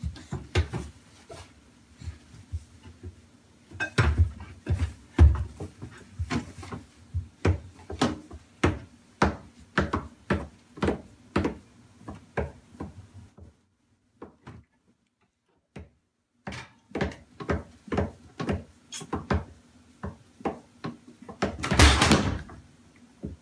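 Pots, pans and lids clattering and knocking in a kitchen cabinet as a toddler rummages through them: a string of sharp knocks, one or two a second, with a pause of about two seconds in the middle and a louder rush of noise near the end.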